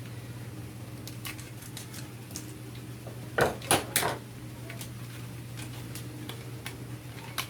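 Small cardboard box and its wrapped packaging being opened and handled: scattered light clicks and taps, with three louder clacks in quick succession about three and a half seconds in.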